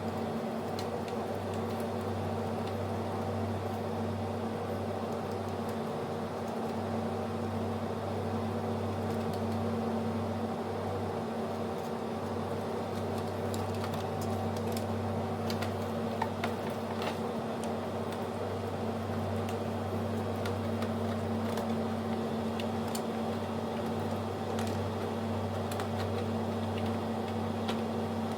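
A steady machine hum with a few fixed tones, and scattered faint clicks in the middle and toward the end.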